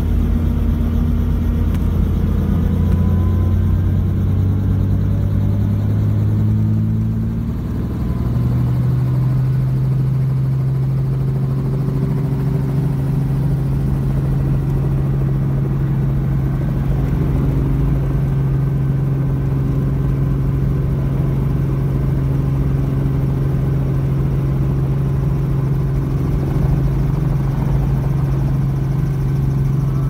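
Helicopter engine and rotor running steadily, heard from inside the cabin. The low hum steps up in pitch about eight seconds in and then holds.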